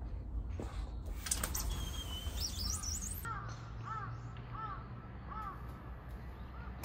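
A sliding glass window is slid open with a brief scraping rush and squeaks, then a crow caws four times, about half a second apart, over a low steady rumble.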